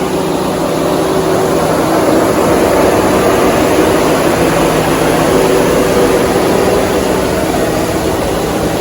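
A 2014 Chevrolet Silverado 1500 pickup's engine running steadily, with a constant low hum and noise.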